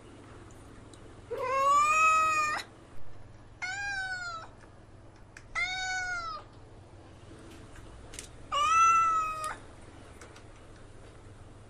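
Domestic cat meowing four times a couple of seconds apart. The first and last meows are the longest and loudest, and the two shorter middle ones fall in pitch.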